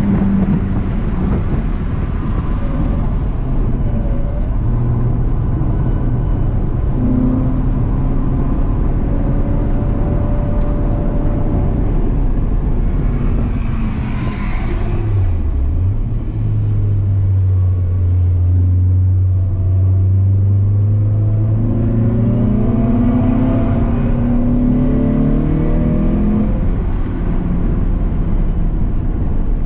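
Renault Clio 182's 2.0-litre four-cylinder engine heard from inside the cabin while lapping a circuit, revs rising and falling with the driving, over tyre and wind noise. About halfway through the engine note drops sharply and comes back up, and near the end it climbs again under acceleration.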